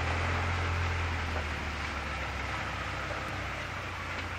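Steady rushing of fast-flowing floodwater, with a low rumble underneath that is strongest in the first second and a half.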